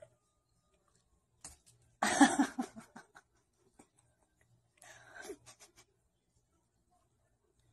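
A person laughing off camera: a short burst of pulsing laughter about two seconds in, then a quieter one about five seconds in.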